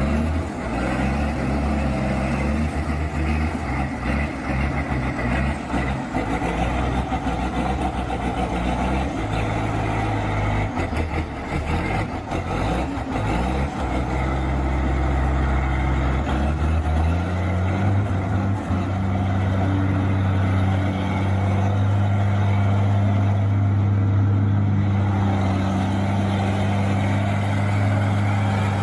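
Engine of a heavy vehicle running, its pitch shifting unevenly at first, then rising about seventeen seconds in and settling into a steady hum.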